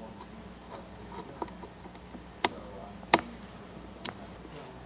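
Sharp clicks and taps of small screws and fingertips on the plastic screen bezel of a Panasonic Toughbook CF-30: a few faint ticks, then three clear clicks in the second half, the loudest just past three seconds in, over a faint steady hum.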